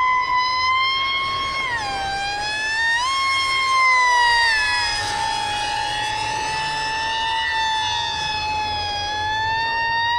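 Radio-controlled model plane in flight: a loud, high whine from its motor, dropping in pitch about two seconds in and climbing back a second later, then slowly easing down and rising again near the end.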